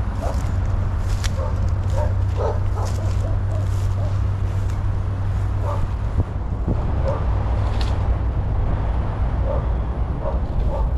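A dog barking and yipping off and on, short calls scattered through, over a steady low rumble and a few crackles of footsteps through grass and dry palm fronds.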